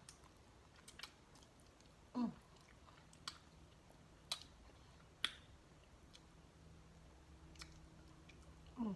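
A person chewing pork off the bone, with scattered sharp mouth clicks and lip smacks and a short falling "mm" about two seconds in.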